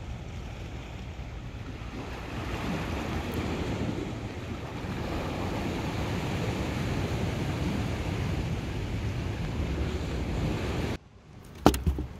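Steady wash of sea surf with wind on the microphone. It cuts off abruptly near the end and is followed by a few sharp knocks.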